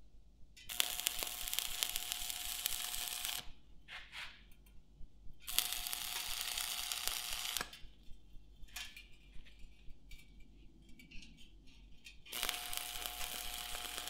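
Stick (arc) welder laying short welds on steel: the arc crackles and sizzles in three runs of two to three seconds each, with brief sputters between them as the rod is struck and broken off.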